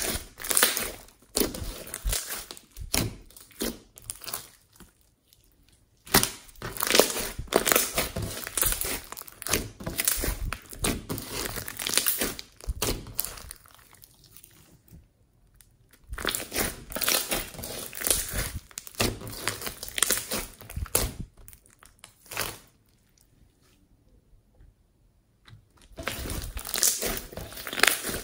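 Hands squeezing, pressing and stretching glossy slime studded with small foam beads, giving dense runs of sticky clicks and pops. There are short pauses between handfuls, the longest lasting about three seconds near the end.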